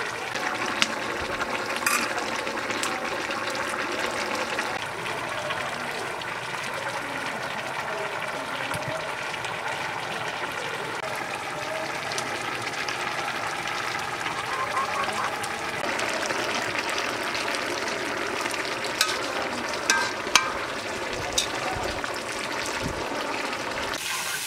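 Curry simmering and bubbling in a large metal wok with a steady hiss. A metal spatula stirs it, clinking sharply against the pan a few times, mostly near the end.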